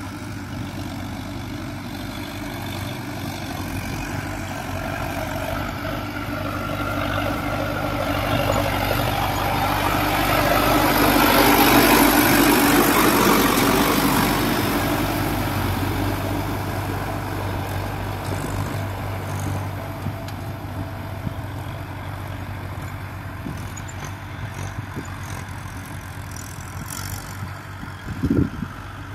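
Diesel farm tractor engine running steadily under load while pulling a tillage implement through the soil. It grows louder as the tractor passes close by, loudest about halfway through, then fades as it moves away. A few sharp knocks come near the end.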